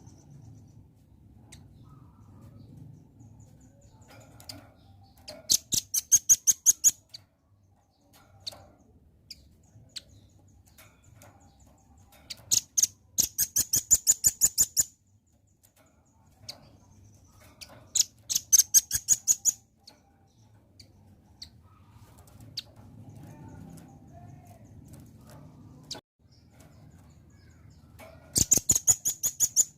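Velvet-fronted nuthatch calling: four bouts of rapid, sharp, high-pitched chit notes, about seven a second, each bout lasting a second and a half to two and a half seconds, with a faint low hum between them.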